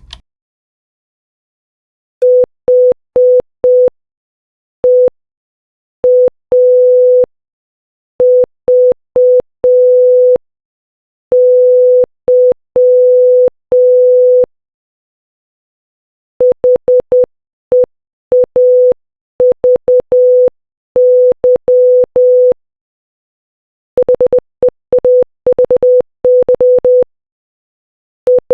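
Morse code for "HEAVY" (.... . .- ...- -.--) sent as short and long beeps of a steady tone near 500 Hz. It plays three times, each faster than the last.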